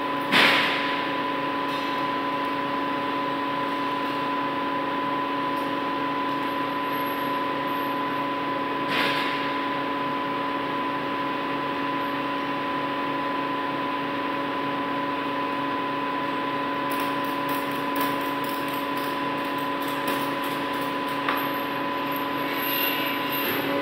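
Steel crane chains and hooks clanking against steel test-weight frames as they are hooked on, the loudest clank about half a second in, another near nine seconds, and lighter chain rattles and knocks toward the end, over a steady machine hum.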